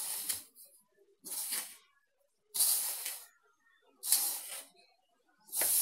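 Hand rubbing oil into flour in a plastic mixing bowl: a rustling, hissing scrape with each stroke, about every second and a half. The flour and oil are being worked until the mix holds together when pressed in the fist, for a crisp pastry shell.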